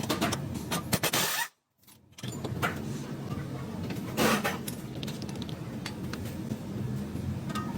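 Metallic clinks and clatter, like tools and parts being handled, over a steady noisy background; the sound cuts out abruptly for about half a second around a second and a half in.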